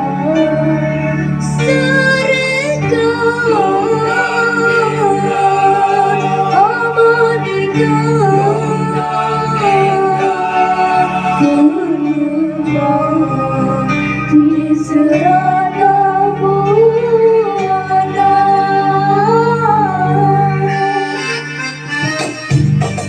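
Malay traditional-style song music: a winding melodic lead over sustained bass notes, with the texture changing near the end.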